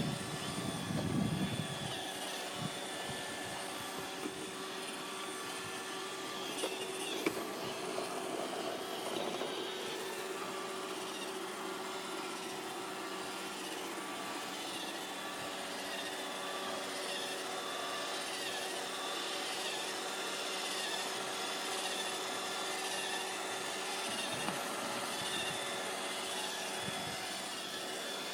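iRobot Roomba 580 robot vacuum running steadily, its motors giving an even whine over the hiss of suction and brushes, with a few low knocks in the first couple of seconds and a brief clatter about seven seconds in.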